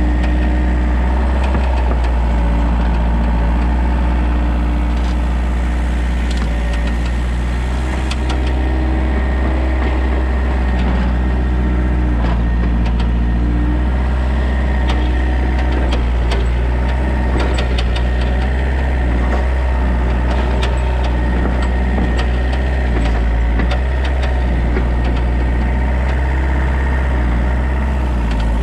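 Excavator diesel engine running steadily under working load, its note wavering up and down as the hydraulics are worked. Scattered short knocks and clatter come in from about six seconds on.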